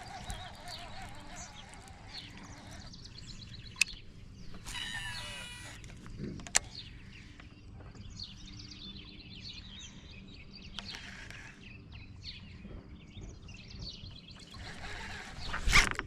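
Birds chirping and calling over outdoor background noise, with two sharp clicks and a louder knock near the end.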